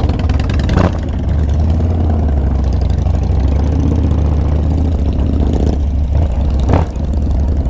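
Harley-Davidson V-twin motorcycle engine idling and running at low speed, a steady low engine note, with two brief louder blips about a second in and near the end.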